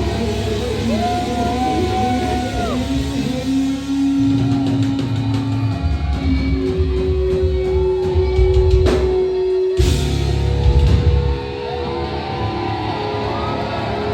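Live hard rock band playing loud: electric guitar holding and bending long notes over bass and drums, with a short break in the bass and drums about two-thirds of the way through.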